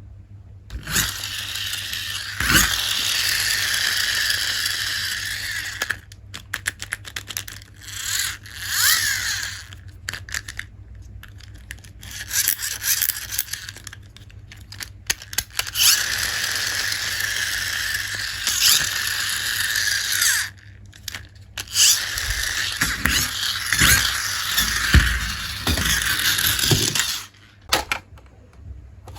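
Toy packaging being torn open and handled: long stretches of crinkly tearing and scraping of plastic and cardboard, broken by short pauses with small clicks and knocks.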